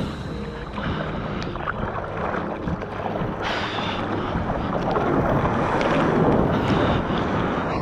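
Rushing water and wind noise on a GoPro microphone in breaking surf, growing louder over the last few seconds before cutting off abruptly.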